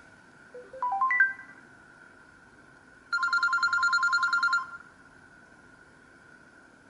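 LG KP500 phone tones: a quick rising run of short electronic notes about a second in, then a fast two-tone trill like a telephone ring that lasts about a second and a half.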